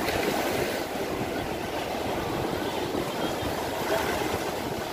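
Shallow surf washing over the beach, with wind noise on the microphone; a steady, even rush.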